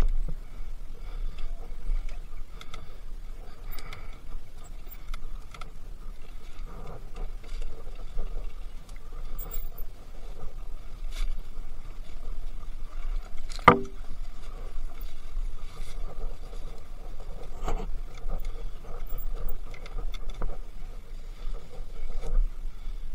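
Enduro motorcycle on a forest trail, heard through a wind-buffeted rider's camera: a steady low wind rumble over the bike running, with scattered knocks and clatter from the rough ground. One sharp knock comes about halfway through.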